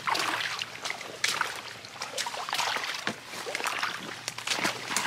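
Rubber boots squelching and splashing through mud and shallow swamp water: a run of irregular wet steps.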